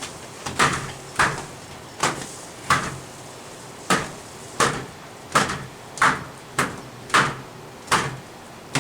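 A towel snapped again and again against a wet window screen, about a dozen sharp smacks at a steady pace of roughly one every two-thirds of a second, flicking the soapy water out of the mesh.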